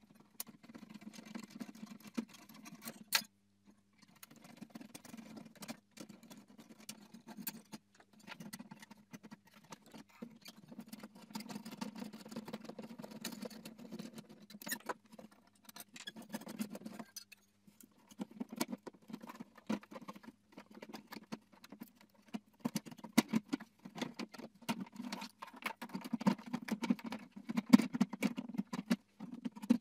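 Clicking, scraping and rattling of hard plastic as a screwdriver undoes the projector's mounting screws in an Audi A4 B6 ZKW headlight housing and the projector is worked out in pieces, with sharp clicks and a few louder knocks among the handling noise.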